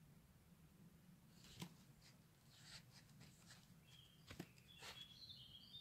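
Near silence, with a few faint clicks and a faint high whistle that steps in pitch near the end.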